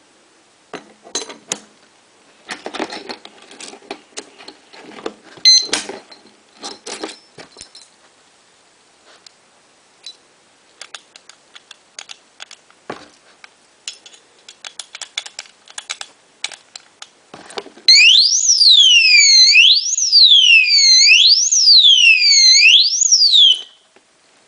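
Alarm padlock being handled, with scattered clicks and metallic rattles. About 18 seconds in, its built-in anti-theft alarm goes off: a loud, high electronic siren wailing up and down about once every second and a half. It sounds for about six seconds and then cuts off.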